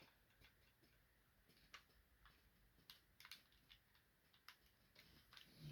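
Faint, scattered clicks and taps of hard plastic toy parts being handled, as a shoulder filler piece is worked onto a Transformers combiner figure, with a slightly louder click near the end.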